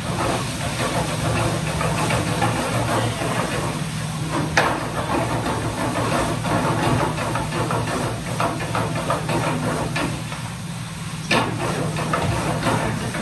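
Greens sizzling as they are sautéed in a frying pan on a gas burner, a steady frying hiss with crackle over the low steady hum of a commercial kitchen extractor hood. Two sharp metal clanks of the pan, about four and a half and eleven seconds in.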